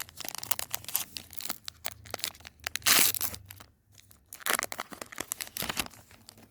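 Foil wrapper of a Pokémon booster pack being torn open and crinkled in irregular crackling bursts, loudest about three seconds in.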